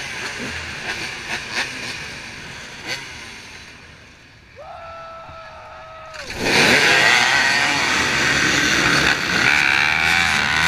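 A row of off-road dirt bikes at a race start. The engine noise dies down, then a steady start tone sounds for about a second and a half. Right after it, many engines rev hard together as the row launches, loud to the end.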